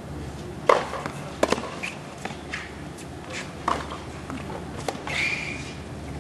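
Tennis ball struck by rackets during a rally on a hard court: sharp pops a second or two apart, with a brief high squeak about five seconds in.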